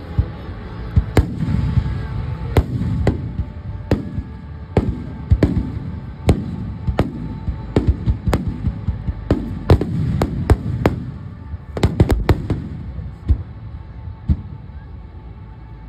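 Aerial fireworks bursting in a rapid series of sharp bangs, each followed by a low rumbling echo, about one or two a second, thinning out near the end.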